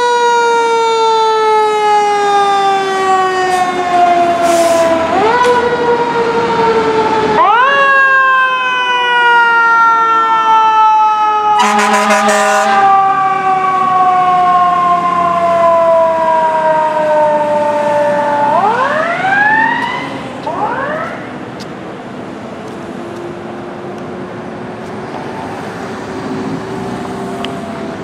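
Fire apparatus siren wailing: each wail jumps up in pitch and then sinks slowly. There is an air horn blast of about a second roughly halfway through, then a few quick rising siren whoops near the twenty-second mark, after which the sound is quieter.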